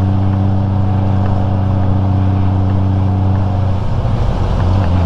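Honda Gold Wing GL1500's flat-six engine running steadily under way, a low, even note. About four seconds in the note wavers and shifts before settling again.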